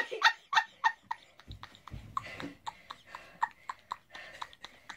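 Quiet, stifled giggling in a string of short breaths, with a couple of soft thumps about one and a half to two seconds in.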